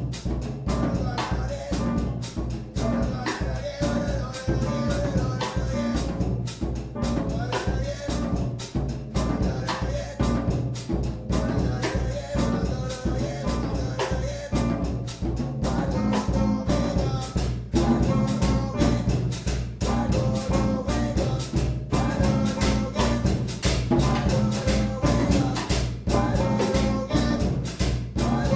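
Drum kit and guitar playing together in a live jazz duo: a steady stream of drum and cymbal strokes under long, held guitar notes.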